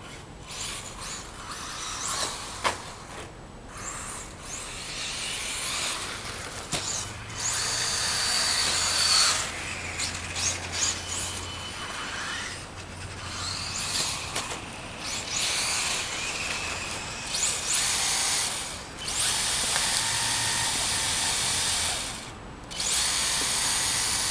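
Traxxas 1/16 Revo VXL RC car's brushless electric motor whining in repeated throttle bursts, its pitch rising and falling as the car speeds up and slows, with the hiss of tyres on dirt.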